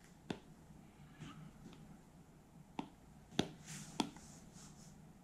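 Hard stylus tip tapping on an iPad's glass screen, several separate sharp clicks, with a faint scratch of the tip sliding across the glass late on.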